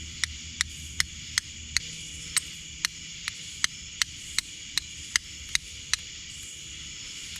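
Steel striker scraped down a flint in quick, even strokes, a little over two a second, each a sharp scraping click as it throws sparks; the strokes stop about six seconds in. A steady night chorus of crickets drones behind.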